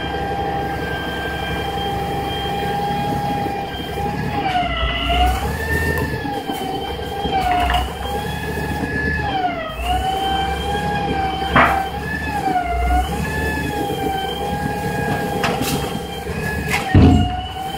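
Grapple truck's diesel engine and hydraulic boom system running, a steady whine over the engine drone that dips in pitch and recovers several times as the knuckle boom and claw are worked. A sharp clank about two-thirds of the way in and a heavier thump near the end.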